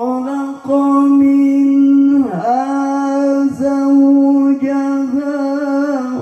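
A man's Quran recitation in melodic tilawah style, amplified through a dangdut stage sound system: long held notes with rich ornamented overtones, broken by short swooping glides between phrases.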